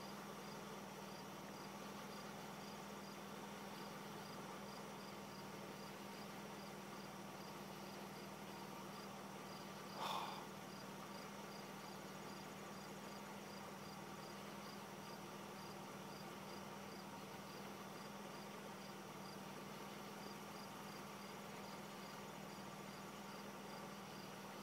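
Crickets chirping steadily, a regular high chirp a little over twice a second over a faint steady hum. A brief louder sound comes about ten seconds in.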